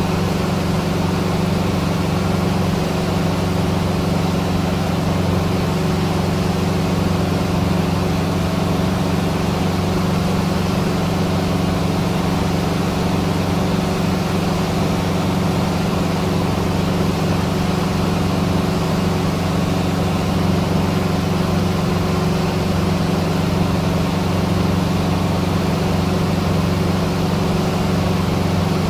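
Cessna 150's Continental O-200 four-cylinder engine and propeller droning steadily in flight, heard inside the cabin.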